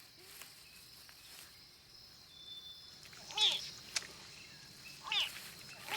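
Crocodile hatchlings calling: two short high-pitched calls about two seconds apart, each rising then falling in pitch, over a faint natural background.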